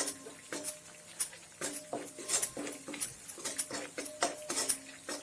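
A spoon stirring and scraping a kadai of frying masala paste and spice powders, clinking against the pan in irregular strokes about two or three times a second, each knock ringing briefly.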